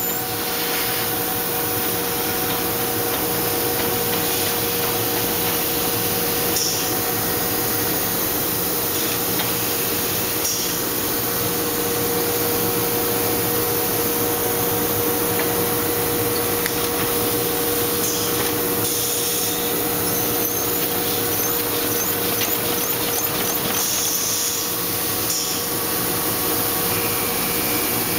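Envelope folding and gluing machine running steadily: a dense, even mechanical clatter over a constant hum, with a few short higher hisses now and then.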